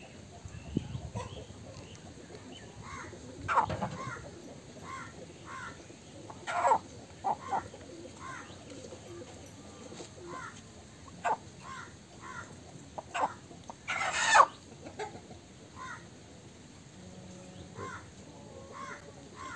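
Chickens clucking in a run of short repeated calls, broken by a few loud squawks, the loudest about fourteen seconds in.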